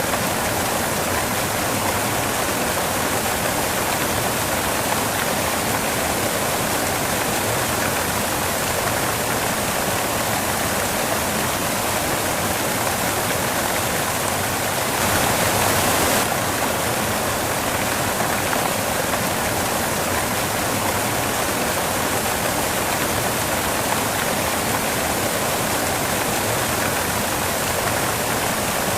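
Steady white noise, an even rushing hiss with no tone or rhythm, briefly a little louder and brighter about halfway through.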